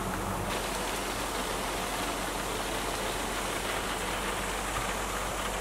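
Steady rain falling on a small fiberglass Scamp camper trailer, heard from inside. About half a second in, a low hum drops out and the rain sounds brighter.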